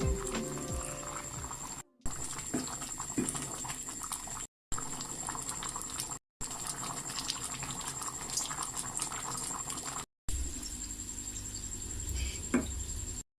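A pot of liquid bubbling on the stove, with many small pops and crackles, heard in several short clips that cut off abruptly.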